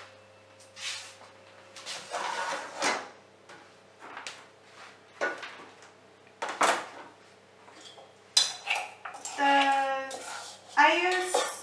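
Clatter of metal kitchenware: a metal baking tray set down on a gas hob and a spoon knocking and scraping in a stainless-steel mixing bowl, in separate knocks. A voice talks over it for the last few seconds.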